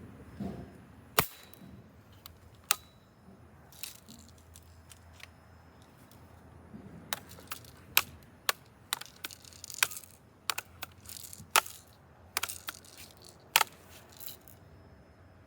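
Sharp cracks and clicks of a BB gun being fired and worked: two single loud cracks in the first few seconds, then a quick irregular string of cracks and lighter clicks, several of them loud, that stops near the end.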